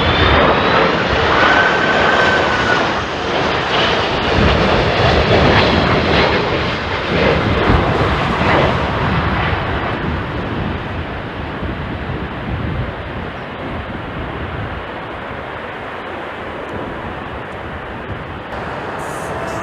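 Jet airliner passing close by: an engine whine rides over the loud rush of its noise at first, then the noise fades steadily as it moves away.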